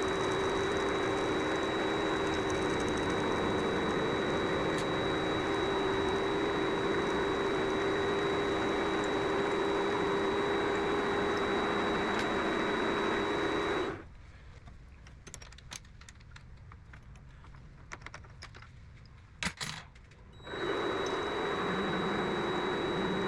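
Vevor MX400 mini lathe running with a steady motor hum and high whine while a part is knurled; about 14 seconds in the motor stops, a few light clicks and a knock of handling follow, and about 20 seconds in it starts up again at a lower pitch.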